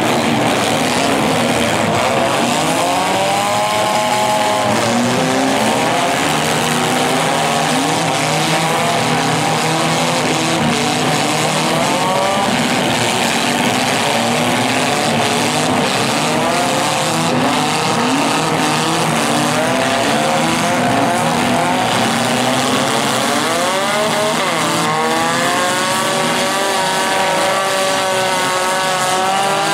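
Many demolition derby car engines revving together in a dense, continuous mix, their pitches rising and falling over one another as the cars accelerate and back up.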